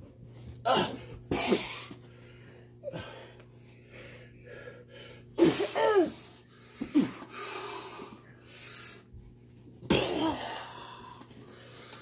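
Short shouts and grunts of effort from people play-wrestling, about six sharp bursts, several falling in pitch, with breathing between them.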